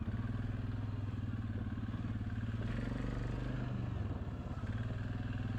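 Suzuki KingQuad 750 ATV's single-cylinder engine running steadily at low speed as the quad is turned around.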